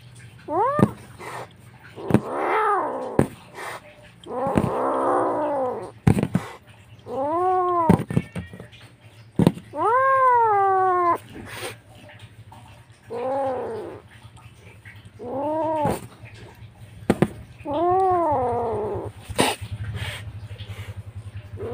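A young feral kitten crying with loud, repeated meows: about eight calls that rise and fall in pitch, several of them rough and drawn out. Sharp clicks come between the calls.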